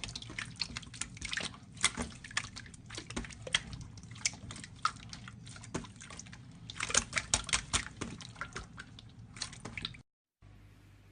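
Slime being squeezed and stretched by hand: dense, irregular wet clicks and sticky pops. It cuts off abruptly about ten seconds in, followed by a quieter stretch.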